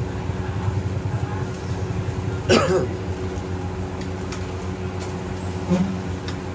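A steady low drone of kitchen equipment, with a sharp metal clatter of cooking utensils about two and a half seconds in and a shorter knock near the end.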